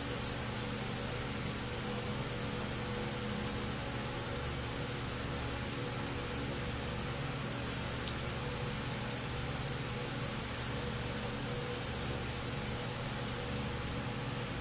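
Wet-free hand block sanding of aerosol primer on a small plastic panel, using an Eagle Abrasives K-grit sanding sheet on a foam block. It makes a steady, even rubbing and rasping from the back-and-forth strokes.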